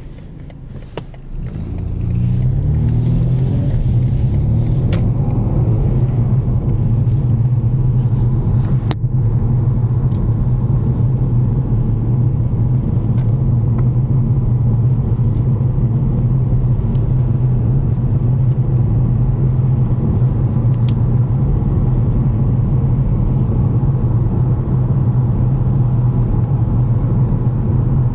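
Car engine and road rumble heard from a moving car: the engine pitch rises over the first few seconds as the car picks up speed, then settles into a steady drone at cruising speed.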